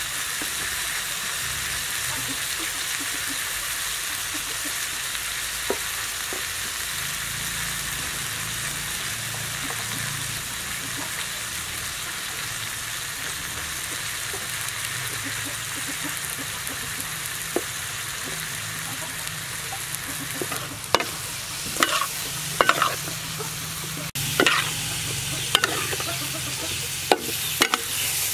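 Fish, pineapple, tomato and onion sizzling in a wok with a steady hiss. About two-thirds of the way through, a metal spatula starts scraping and knocking against the wok as the stir-fry is turned.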